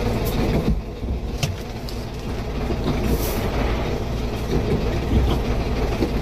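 Heavy truck's diesel engine idling, a steady low rumble heard inside the cab while the air tanks build pressure after starting. A few light clicks, and a short hiss about three seconds in.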